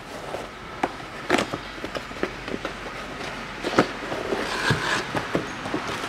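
A new MANN CUK 1919 cabin filter being handled with its cardboard box: scattered taps and clicks, and a brief sliding rustle about four to five seconds in as the filter is drawn out of the box.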